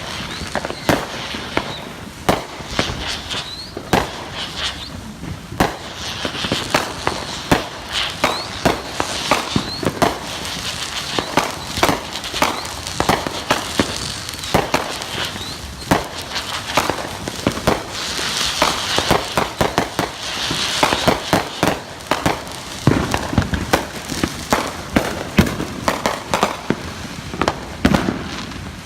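Consumer fireworks and firecrackers going off in rapid, irregular bangs, with a few short rising whistles and a patch of crackling about two-thirds of the way through.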